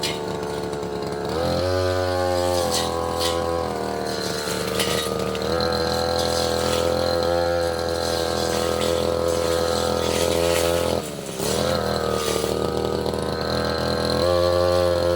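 Tasco 33 Pro brush cutter engine running at high speed while cutting saplings and small roots. Its pitch sags and recovers as the blade takes load, with a short dip about eleven seconds in.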